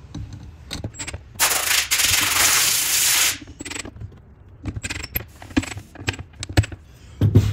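Four screws being driven in to fasten a subwoofer into its plastic enclosure. An even, hiss-like burst lasts about two seconds, then scattered clicks and knocks of the tool, screws and housing follow.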